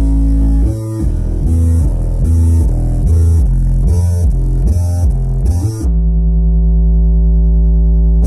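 Loud music with a deep bass line. It plays a quick run of short notes, then holds one long low note from about six seconds in.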